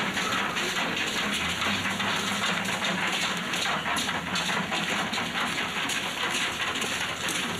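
Steady rain pattering, with a low engine hum underneath that grows stronger about a second and a half in.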